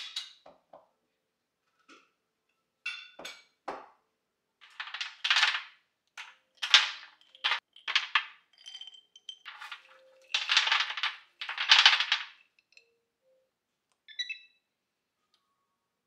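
Hazelnuts and cashew nuts poured from a glass jar onto a parchment-lined baking tray: a string of rattling pours, the last two the longest, after a few light clinks and knocks of the jar.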